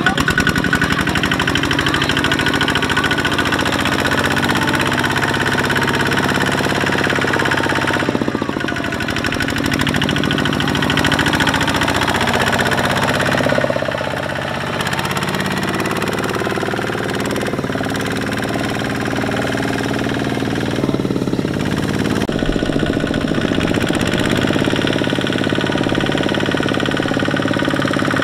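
Single-cylinder Kubota ZT155 diesel engine of a two-wheel walking tractor running steadily with a rapid knocking chug while hauling a loaded trailer.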